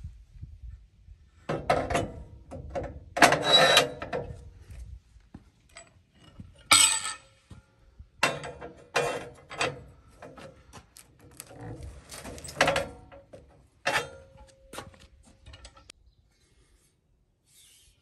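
Irregular metal clanks, knocks and scrapes as a steel Unistrut channel is set on a sawmill's steel track and a cant hook is levered against it to push a log toward the stops; some clanks ring briefly.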